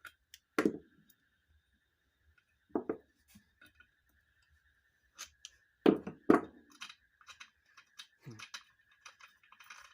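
Metal tool and bolt knocking and clinking against a ceiling fan's metal body as the bolt is worked loose: a few sharp knocks spread out, then a quick run of small clicks in the second half. A faint steady high tone runs underneath.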